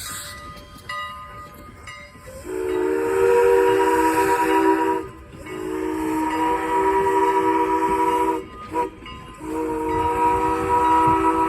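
Steam whistle of Strasburg Rail Road No. 89, a 2-6-0 steam locomotive, sounding a chord in a long, long, short, long pattern: the standard grade-crossing warning. Steam hissing is heard for the first couple of seconds before the whistle starts.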